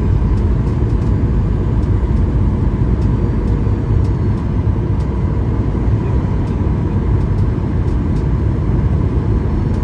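Airliner cabin noise in flight: a steady deep rumble of the jet engines and rushing air, with a faint thin whine held above it.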